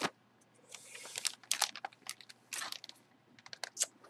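Clear plastic bag crinkling and rustling in irregular bursts as a jersey sealed inside it is handled and lifted out of its box.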